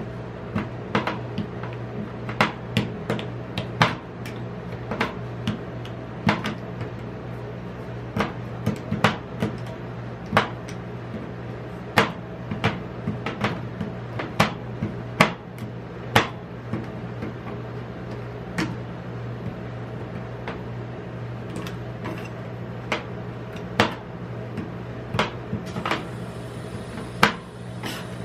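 Two metal spatulas chopping a chocolate bar on the steel plate of a rolled-ice-cream cold plate: irregular sharp metal taps and clacks, about one or two a second, over a steady low hum.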